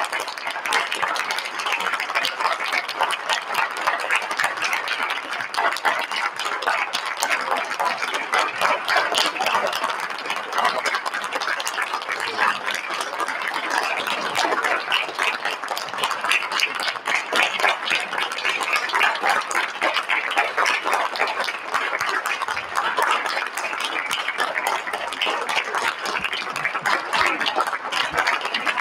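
Audience applauding without a break, a long, steady ovation.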